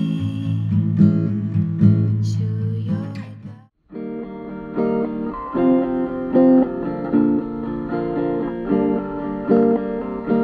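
Background music led by acoustic guitar. One track ends abruptly a little under four seconds in, and after a brief gap another guitar track starts.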